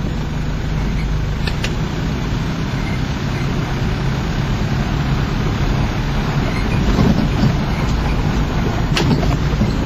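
Vehicle engine running with a steady low rumble, heard from inside the cab, with a couple of light clicks about a second and a half in and near the end.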